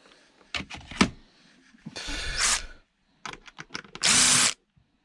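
Electric drill-driver running in two short bursts about two seconds apart, backing out screws. Clicks and knocks of handling come before and between the bursts.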